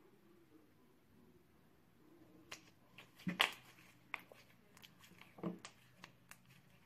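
Soft pink slime being squeezed and pressed between the hands, giving faint irregular clicks and pops. A quiet start, then the pops come about two seconds in, loudest around the middle.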